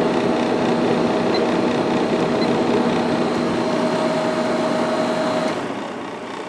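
Sharp room air conditioner running on high fan speed with its compressor on: a steady rush of air over a steady hum. About five and a half seconds in, the hum cuts out and the sound falls to a quieter air rush.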